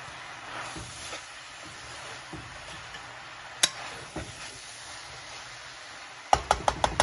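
A metal spoon stirring shredded cabbage in a steel pan, with soft scraping and one sharp clink about halfway through. Near the end come a quick run of sharp metal clinks, several in under a second, as the spoon strikes the pan.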